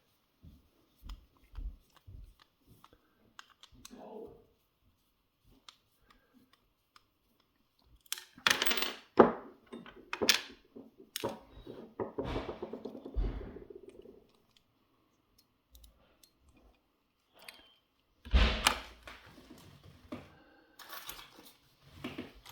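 Handling noise of a lock being disassembled: scattered clicks, scrapes and clatter of small metal parts and tools, with louder bursts of knocking about eight seconds in and again near eighteen seconds.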